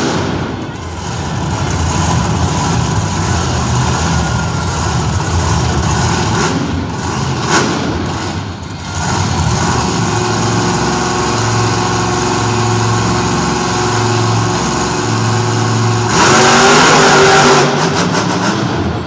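Monster truck engine running in an arena, its low rumble pulsing as the throttle is worked, rising to a louder rev for a second or two near the end.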